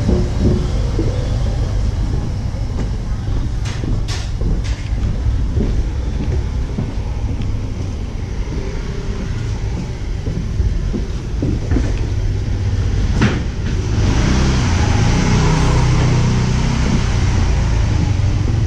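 Low, steady rumble of a handheld camera carried on a walk along a wooden boardwalk, with a few sharp knocks and clicks. A louder hiss comes in about three-quarters of the way through.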